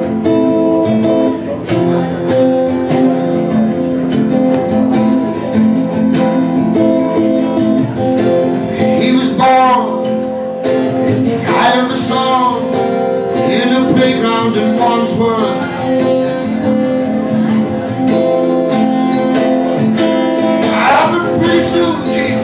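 Strummed steel-string acoustic guitar playing steady chords, with a man's singing voice coming in about nine seconds in and again near the end.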